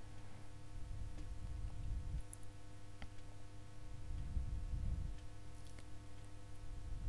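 Background room tone: a steady low hum with a few faint clicks.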